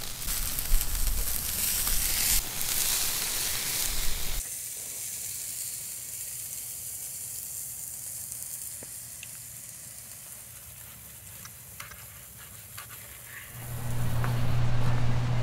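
Steak sizzling as it sears over a fire, a steady hiss that drops abruptly to a quieter sizzle about four seconds in. A steady low hum comes in near the end.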